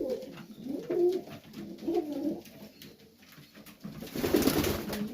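Serbian highflyer pigeons cooing in a loft, low wavering coos. A louder brief rushing burst of noise comes about four seconds in.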